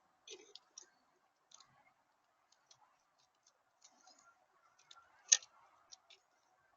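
Small birds feeding at a bird feeder: irregular light clicks and taps of pecking and seed-cracking, with one sharper click about five seconds in, over a faint steady hum.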